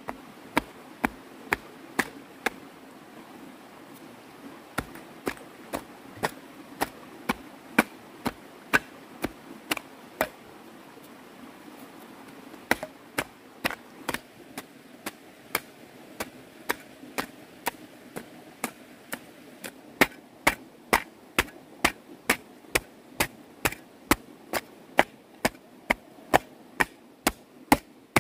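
Digging tool striking the ground over and over, about two blows a second, in three runs with two short pauses.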